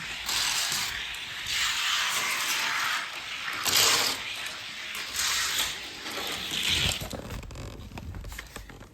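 Small die-cast toy cars rolling down a racing track lane, their little wheels making a rushing, rattling hiss that swells and fades several times.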